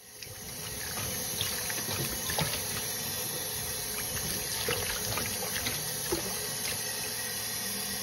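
Water running and splashing in a sink as a hand swishes freshly picked green bean pods in a bowl of water to wash them, with small scattered splashes and knocks.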